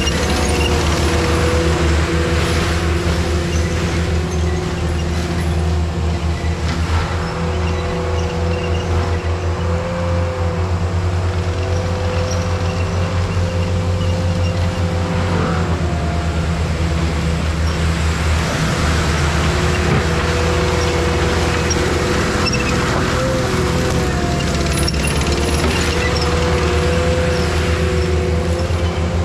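ASV RT-120 Forestry tracked skid steer running its forestry mulcher: a steady diesel engine drone under a high, held whine from the spinning mulcher head and hydraulics, which wavers a little now and then.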